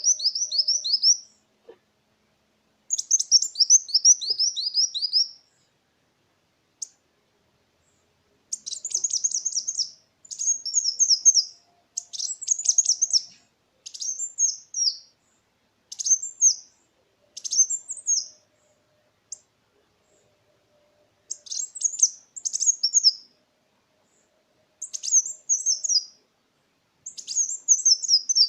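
Kolibri wulung sunbird singing: phrases of rapid, high, thin descending notes, each phrase a second or two long, repeated again and again with short pauses between.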